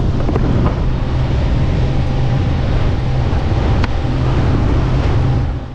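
Wind buffeting the microphone and water rushing and splashing beneath an inflatable sofa boat towed at speed by a speedboat, over a steady low hum; the sound drops away sharply near the end.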